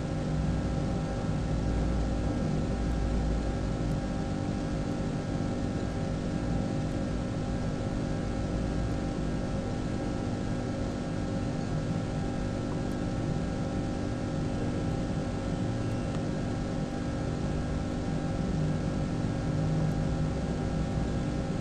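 A steady mechanical hum: several held tones over a low rumble, unchanging throughout.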